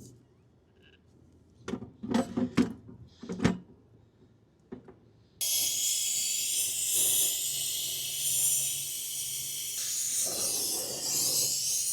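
A few short knocks, then about five seconds in the small Ambro Controls brazing torch flares up abruptly and burns with a loud, steady hiss.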